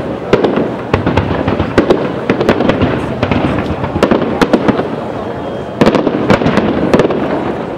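Aerial firework shells bursting in a rapid, uneven series of sharp bangs and cracks over a continuous rumble, densest about six to seven seconds in, easing off near the end.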